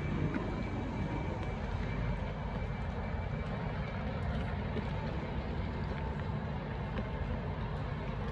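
Steady reverberant background noise of a busy railway station concourse, with wheeled suitcases rolling over the hard floor.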